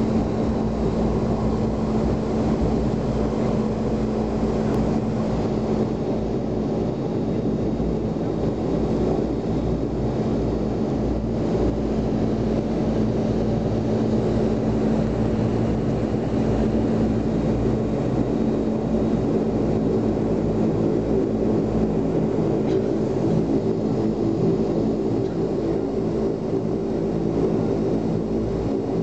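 Twin turboprop engines of an ATR-72 airliner running steadily, heard from inside the passenger cabin: a constant drone with a steady low hum.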